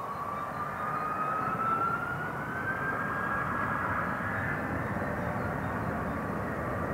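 Delta Air Lines Airbus A330-300's Pratt & Whitney jet engines on takeoff: a steady rumble that grows louder under a whine rising in pitch over about four seconds, then holding steady.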